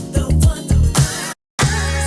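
Pop music with a steady kick-drum beat, played back as a test excerpt. It cuts out to dead silence for a moment about one and a half seconds in, then starts again: a switch to the next clip being compared.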